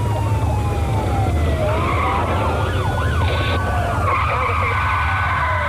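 Vehicle tyres screeching in a skid with a police siren wailing, their pitch sliding down and back up, over a steady low engine drone; locked wheels braking on a car without ABS.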